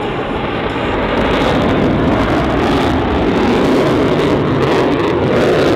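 Loud, steady jet noise from an F/A-18F Super Hornet's twin General Electric F414 turbofan engines as the fighter flies its display overhead.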